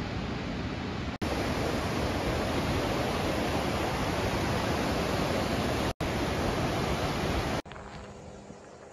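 Steady rushing of a waterfall and river rapids, broken by abrupt cuts. Near the end the rushing stops suddenly, leaving a much quieter outdoor background with a faint low hum.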